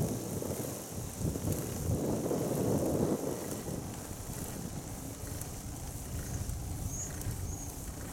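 Wind noise on the microphone while cycling, gusting strongest over the first three seconds and then easing to a steadier rush.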